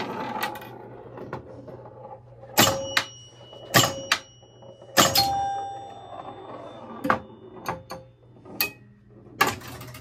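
1970 Gottlieb Batter Up electromechanical pinball machine during play: three sharp ringing strikes of its scoring bell, about a second apart, then a few lighter mechanical clicks, over a low steady hum.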